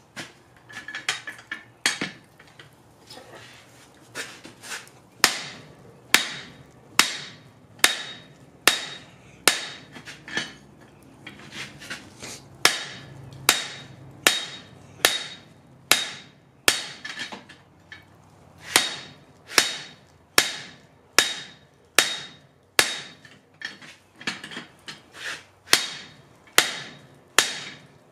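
Hand-hammer blows on the top post of a guillotine-style forging tool that clamps a red-hot steel billet. After a few scattered knocks, the blows fall steadily at a little more than one a second, each with a short bright metallic ring.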